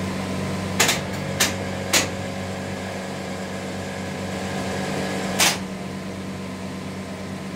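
Steady electrical hum from hoist winch machinery fitted with an electro-hydraulic thruster drum brake, crossed by four sharp metallic clicks: three in the first two seconds, one more about five and a half seconds in.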